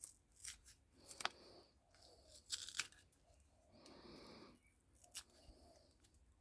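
Faint, scattered sharp clicks and snaps of hand tools working metal, with a short rasping scrape about four seconds in.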